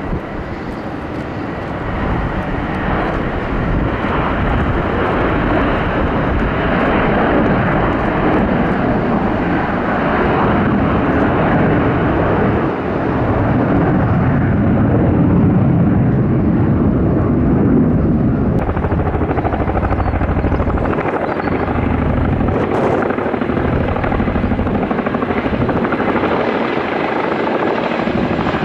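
Boeing 757 jet airliner's twin engines at takeoff power as it rolls and climbs away, a loud, dense, steady jet noise. About 19 seconds in, this gives way to a CH-47 Chinook's twin rotors with a low pulsing beat.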